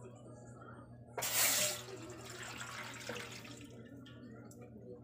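Coconut milk poured from a ceramic bowl into a metal pot. It starts suddenly about a second in as a loud splashing pour, then trails off over the next two seconds into a fainter trickle.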